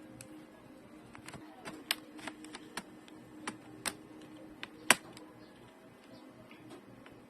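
Scattered sharp clicks and taps of tools and plastic parts being handled on a laptop being opened up, irregularly spaced, with one louder snap about five seconds in, over a faint steady hum.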